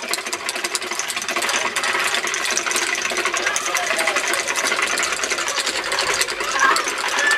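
Wooden Easter rattles (Klappern) clattering rapidly and without a break, a dense run of dry wooden clicks: the Osterklappern custom, where rattles stand in for the silent church bells before Easter.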